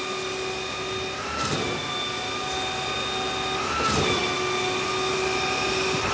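Construction machinery running with a steady, even whine, broken by a sharp click about every two and a half seconds.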